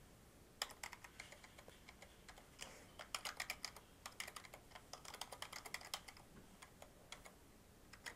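Typing on a computer keyboard: faint key clicks in quick runs with short pauses between them, busiest in the first six seconds and sparser near the end.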